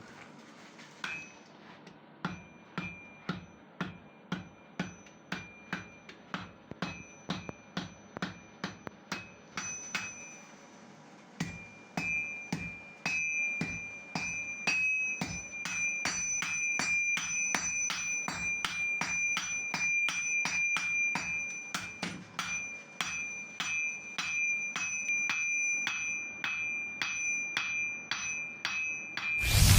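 Hammer blows on iron over an anvil while forging a sickle, each strike ringing with a high metallic tone. The blows come at a steady pace at first. About a third of the way in they become quicker and louder. A loud whoosh comes right at the end.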